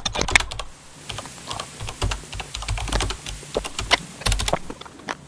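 Close-miked eating of a chicken sandwich: a dense run of crisp clicks and crunches in the first second, then sparser clicks with a few soft low thuds of biting and chewing.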